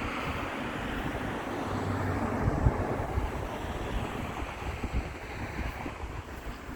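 Wind buffeting the microphone over a low outdoor rumble that swells toward the middle and eases off.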